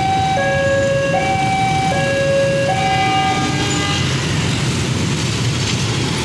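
Railway level-crossing warning alarm sounding a two-tone hi-lo tone that switches pitch about every 0.8 seconds, then stops about four seconds in as the crossing clears behind the train. Motorcycle traffic runs underneath it.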